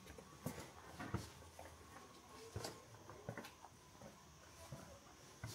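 Faint footsteps walking at an even pace, a light knock about every three-quarters of a second, over quiet street ambience.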